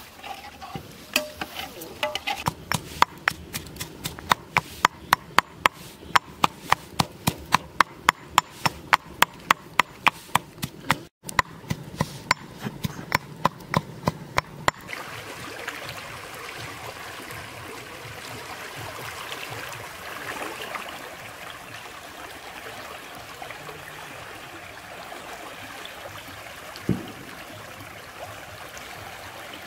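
A fast, even run of sharp clicks, two to three a second, for about the first half. Then the steady rush of water flowing through a concrete canal sluice, with one short thump near the end.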